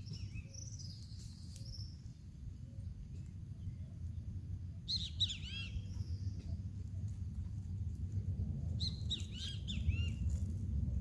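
Small birds chirping in quick series of arching notes, once about five seconds in and again near the end, over a steady low rumble.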